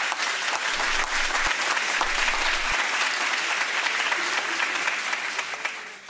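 Applause from a group, many hands clapping steadily, fading out near the end.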